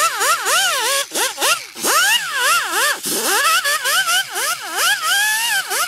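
Pneumatic straight die grinder with a small wire wheel, scrubbing rust and grime off a cast brake caliper. Its whine dips and climbs back up two or three times a second as the wheel bites into the metal, over a gritty scratching hiss.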